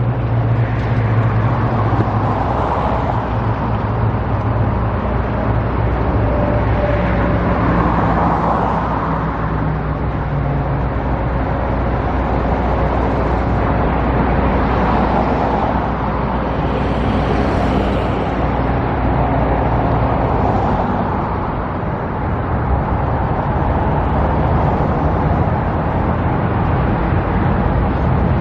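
Road traffic noise: a steady rumble of vehicles, with several cars swelling past one after another over low engine hum.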